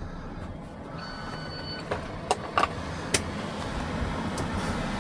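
Inside the cabin of a Toyota Agya with its engine idling and its air conditioning running: a steady low hum, a short electronic beep about a second in, then a few sharp clicks.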